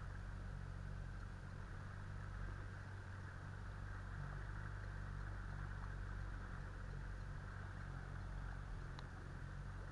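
A boat motor running steadily at an even, low hum, with a faint click about nine seconds in.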